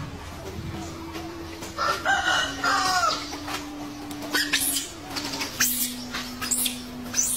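A shrill animal cry about two seconds in, lasting roughly a second, followed by a few sharp clicks, over a faint steady low hum.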